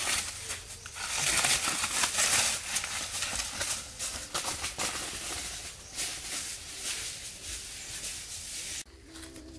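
Dry leaf litter crackling and rustling under bare feet walking through it, loudest in the first few seconds and breaking off sharply near the end.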